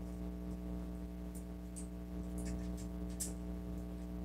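A few faint, sharp clicks and taps of the MG 00 Raiser Gundam kit's plastic parts being handled and fitted together, the sharpest about three seconds in, over a steady electrical hum.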